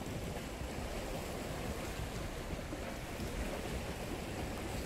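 Steady wash of small sea waves against a rocky shore, with wind on the microphone.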